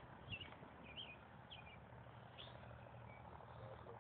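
Faint, repeated short bird chirps, one every half second or so, over a low steady hum.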